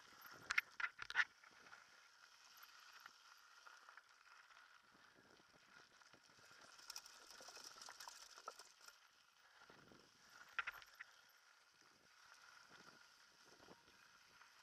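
Faint rattles and knocks of a mountain bike riding down a rough dirt trail, with a cluster of sharp knocks about half a second to a second in and another near eleven seconds.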